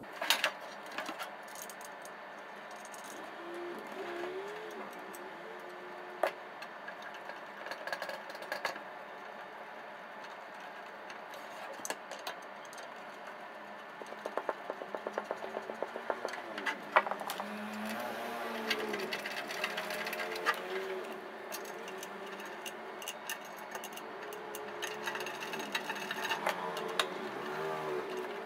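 Screwdriver driving small screws back into the sheet-metal casing of a CCTV DVR, with handling clicks on the metal case and a quick run of rapid ticks about halfway through.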